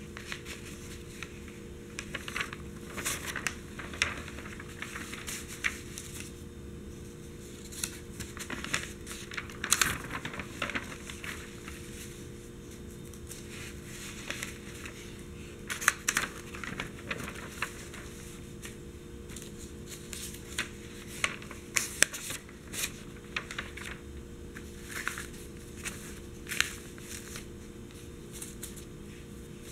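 Newspaper pages being turned and smoothed flat by hand: irregular sharp rustles and crackles of the paper, coming in short clusters with quieter gaps between.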